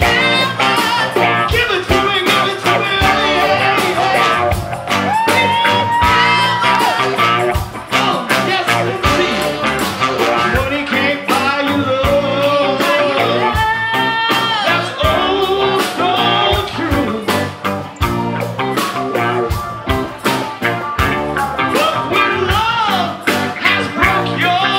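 Live blues-rock band playing a song, with a steady drum beat, electric guitar, a saxophone and trombone horn section and a female lead singer.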